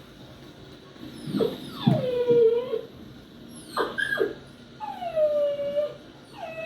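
Puppy crying. Two long whining cries about a second and a half and five seconds in each fall in pitch and then hold, with a few short yelps between them around four seconds in.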